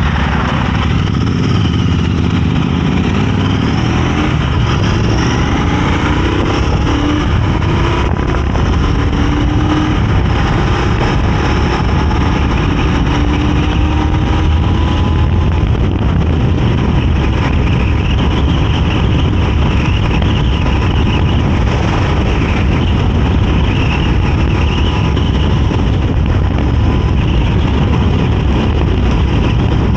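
Royal Enfield Interceptor 650 parallel-twin engine pulling the bike along at road speed, heard from the rider's seat with rushing wind. It rises in pitch as the bike accelerates over the first several seconds, then holds a steady cruise.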